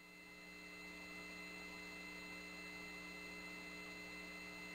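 Faint steady electrical hum with several thin steady tones and light hiss on the launch-control audio line. It fades in about a quarter second in.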